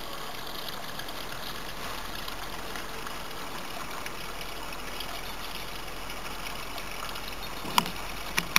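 Water trickling and running steadily across wet pavement, with two short sharp clicks near the end.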